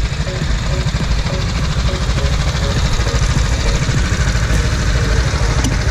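Rental go-kart engines idling on the grid, a steady low engine rumble.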